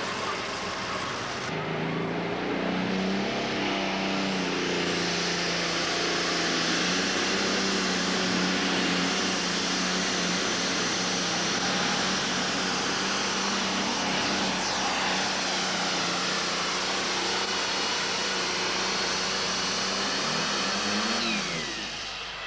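Diesel pulling tractor's engine held at full throttle under the load of the sled, a steady high-revving drone. Near the end the pitch climbs briefly and then falls away as the throttle comes off at the end of the pull.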